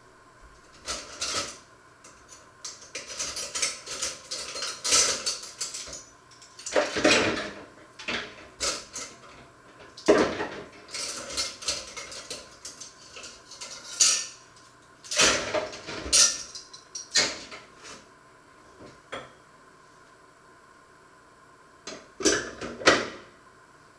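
Metal pots, pans and cutlery clattering as they are handled at a kitchen sink, in irregular bursts with a lull of a few seconds near the end.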